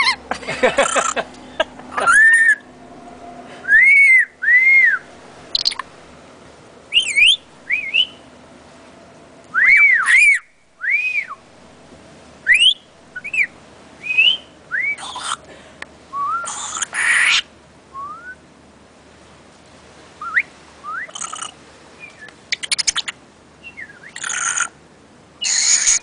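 Black-capped lory calling: a string of short whistles, each arching up and down or gliding upward, broken by several harsh screeches that come more often in the second half.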